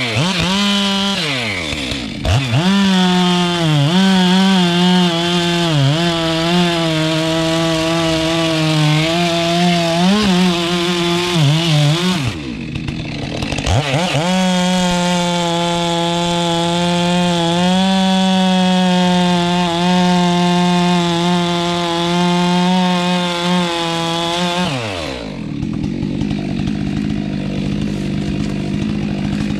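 Chainsaw engine at high revs, cutting into a tree, its pitch dipping and recovering as it bogs under load. It drops off the throttle for about a second near the middle, revs up again, and falls back to a lower, rougher run near the end.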